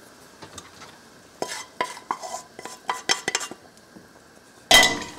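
Enamelled cookware clinking and scraping as the emptied saucepan is tipped against the Dutch oven: a quick run of small ringing clinks, then one loud ringing clank near the end.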